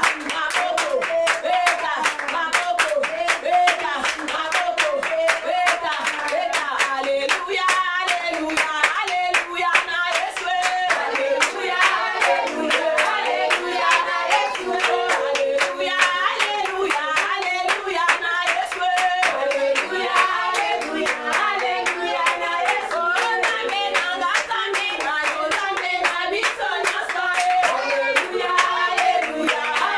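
A congregation clapping hands together in a steady rhythmic beat along with worship singing.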